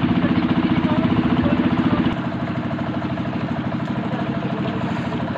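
Small motorboat engine running steadily as it tows a floating raft along a rope, with a fast, even putter. The low end drops away about two seconds in.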